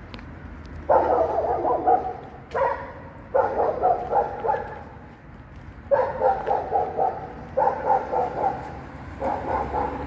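A dog barking in quick runs of several barks each, six runs in close succession.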